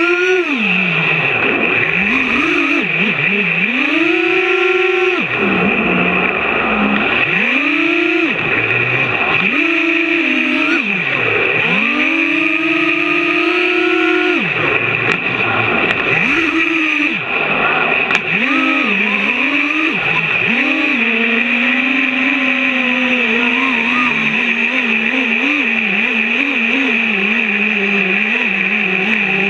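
FPV racing quadcopter's 2206 2400KV brushless motors and 5-inch props, heard from its onboard camera: a motor whine that swoops up and down sharply with each throttle punch. Near the end it settles into a lower, steadier, wavering hum.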